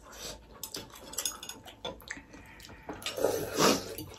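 Eating noodle soup: forks and spoons clicking and scraping against glass bowls, with wet slurping of chicken thukpa, loudest about three seconds in.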